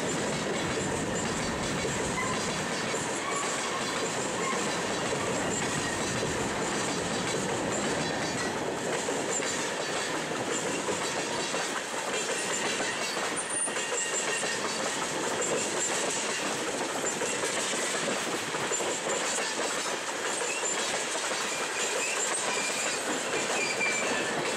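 Freight cars (covered hoppers, tank cars and autoracks) rolling past at speed: a steady noise of steel wheels running on the rails, with faint high squeals here and there.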